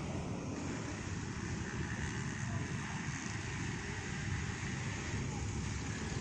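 Steady low rumble of road vehicles running, with no distinct events.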